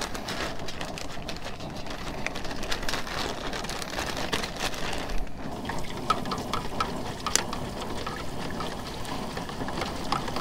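Breaded crappie fillets sizzling and crackling as they deep-fry in hot oil, in a fry basket in an aluminum stockpot.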